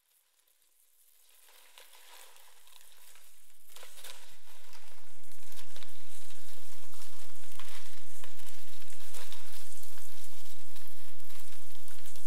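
Electronic crackle-and-static noise texture with scattered clicks over a steady low hum, fading in from silence over about five seconds and then holding steady.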